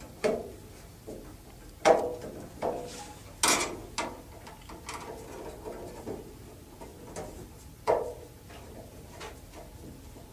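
Screws being tightened by hand with a Phillips screwdriver into a range hood's hanging bracket: scattered clicks and knocks of the tool and the mount, the sharpest about two, three and a half and eight seconds in.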